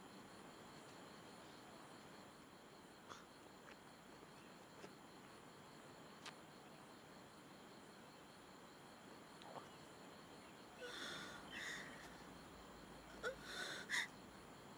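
Faint night ambience with insects, crickets, trilling steadily and a few soft clicks. From about eleven seconds in, a man makes short breathy vocal sounds, the loudest two near the end.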